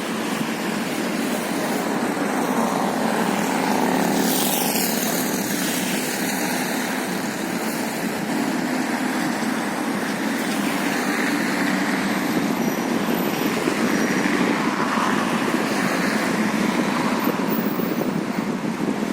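Steady rushing of sea waves and wind.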